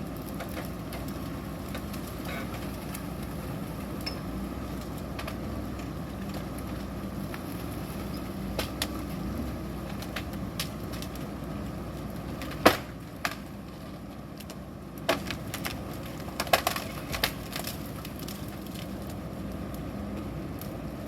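CAT 420F backhoe loader's diesel engine running steadily while it works, with scattered sharp knocks and clanks, the loudest a little past the middle.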